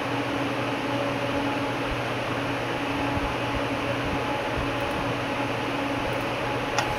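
Steady mechanical hum and hiss like a running fan or air conditioner, with a single faint click near the end.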